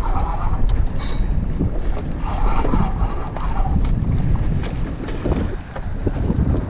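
Wind buffeting the microphone of a GoPro on a small open boat at sea, over the wash of sea water around it.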